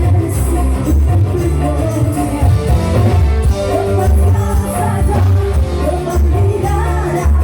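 Loud live dangdut music: a band with a heavy, pulsing bass beat and a singer's melody over it.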